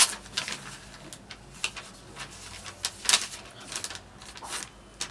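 Paper rustling and crinkling in short, sharp bursts a second or so apart as notebook pages and a loose sheet are handled; the sharpest rustle comes right at the start.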